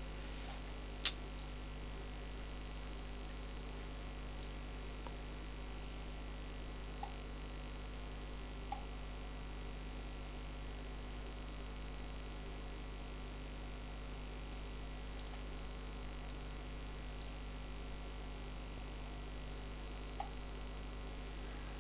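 Steady low electrical mains hum in the recording, with one sharp click about a second in and a few faint ticks later.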